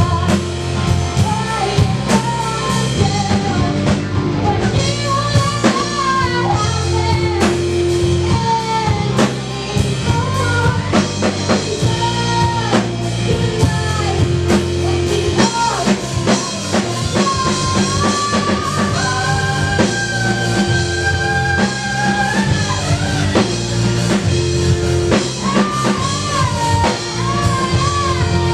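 Live rock band playing a song: a woman's voice singing a wavering melody into a microphone over electric guitar, bass guitar, keyboard and a drum kit.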